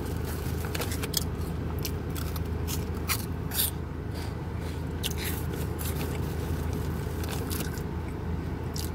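Foil-lined snack bag of Cheez Doodles baked puffs crinkling as a hand rummages through the puffs, giving irregular sharp crackles and crunches over a steady low hum.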